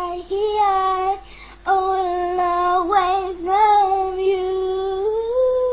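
A young girl singing long held notes, with a short break about a second and a half in and a step up to a higher held note near the end.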